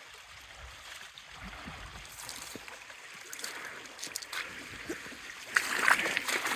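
Shallow river water running over stones, with scattered small splashes and knocks that grow louder and busier near the end.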